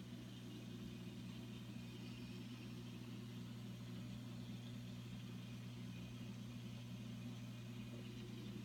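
Steady low hum with a faint hiss, from a reef aquarium's running pumps and equipment.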